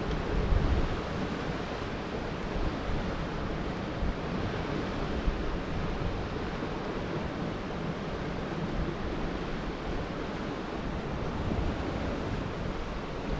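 Sea swell washing steadily against rocks, with wind rumbling on the microphone.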